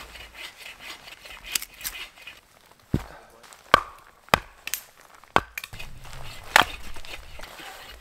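Wood being chopped: about six sharp, irregularly spaced knocks, with a couple of fainter ones in the first half.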